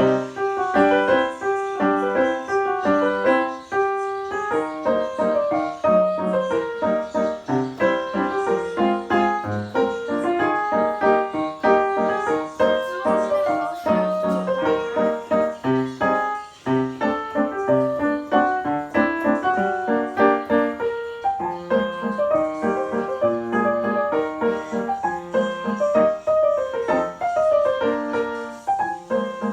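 Piano being played: a continuous melody over chords, note after note.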